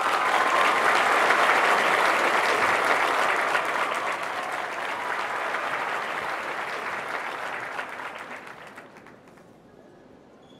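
Audience applauding, loud at first, then dying away over the last few seconds.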